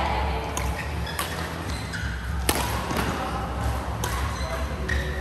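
A badminton rally: rackets hit the shuttlecock with sharp clicks about once a second, the loudest about halfway through. Court shoes squeak briefly between the hits.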